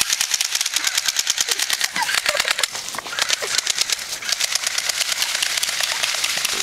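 Airsoft guns dry-firing on full auto with no BBs: a rapid, steady run of sharp mechanical clicks that goes on without a break.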